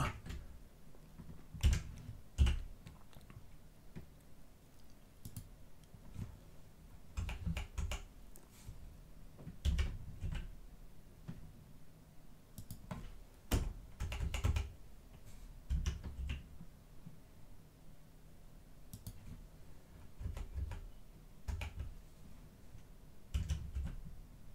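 Computer keyboard keys and mouse buttons being pressed: irregular, scattered clicks and taps, some with a dull low thud. The sharpest clicks come about two seconds in.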